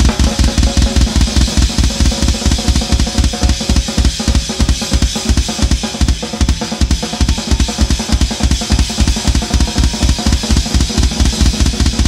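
Drum kit solo played live: fast, unbroken bass drum strokes under snare hits and ringing cymbals.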